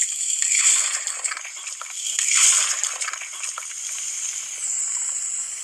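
A glossy yellow slime squeezed and pressed between two hands, making wet squishing and crackling sounds.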